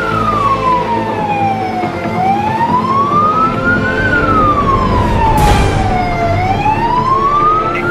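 Emergency-vehicle siren in a slow wail, its pitch sliding up and down with each rise and each fall taking about two seconds.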